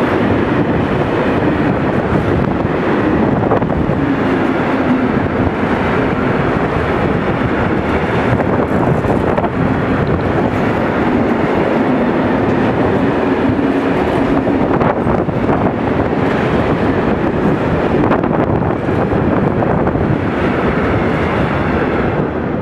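Freight train of tank wagons rolling past at speed: a loud, steady rumble of steel wheels on the rails, until the tail of the train goes by near the end.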